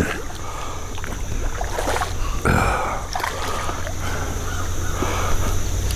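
Small hooked flathead catfish splashing and thrashing at the surface of the water, over a steady low rumble. There is one sharper splash about two and a half seconds in.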